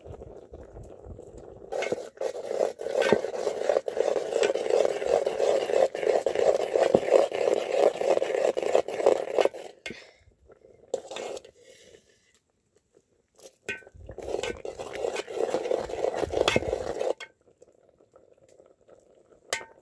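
A ladle stirring nettle soup in a pot and scraping and clinking against its side, in two spells: a long one of about eight seconds, then after a pause a shorter one of about three seconds, with a few single clinks between.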